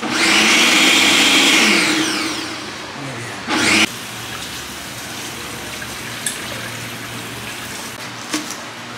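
Countertop blender puréeing a jar of peppers and onions, its motor winding down about two seconds in. After a short loud burst, tap water runs steadily into a plastic colander as it is rinsed by hand.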